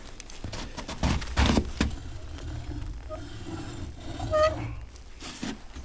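Old rusty lever-handled hand pump being handled: a few metal knocks and clinks, and a short squeak about four and a half seconds in as its rusted parts are moved.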